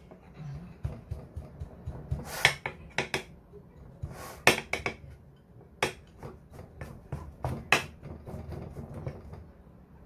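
A small ceramic plate knocking and scraping against a baking pan as it presses down a layer of shredded kunafa dough, with irregular sharp clicks every second or so over a soft rustle.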